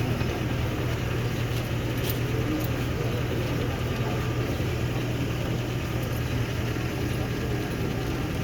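An engine running steadily with a low, even hum under a constant background noise.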